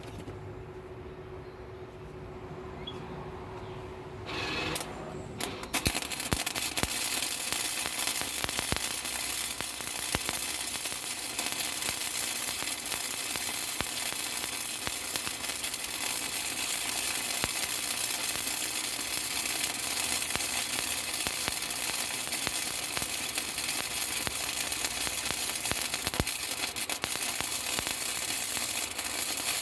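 A low hum, then about five seconds in a dense crackling and clicking noise starts and runs on steadily, typical of metalworking on a truck body or frame.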